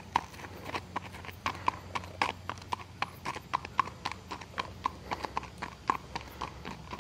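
A horse's hooves clip-clopping at a walk on a paved road: a steady run of sharp hoof strikes, several a second.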